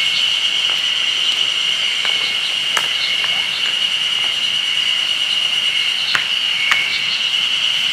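A steady high-pitched drone throughout, with a few sharp knocks, about three, of stones being set down to build a fire ring.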